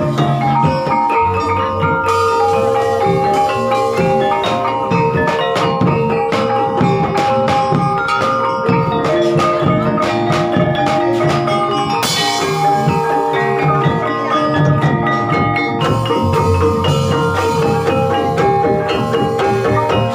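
Gamelan music accompanying an ebeg trance dance: tuned mallet instruments ring out repeating melodic lines over drums. A hissing wash rises over it about twelve seconds in and fades some four seconds later.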